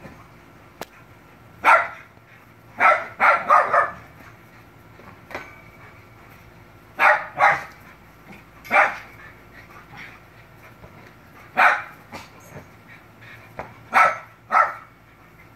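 Miniature schnauzer barking in sharp single barks and quick runs of two to four, about eleven in all.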